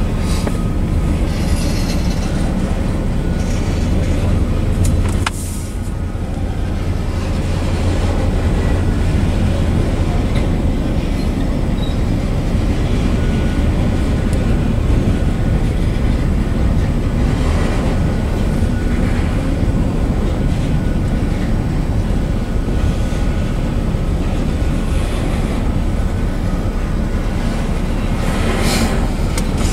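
Enclosed autorack freight cars rolling past: a steady rumble of steel wheels on rail, broken by a few sharp clanks and rattles.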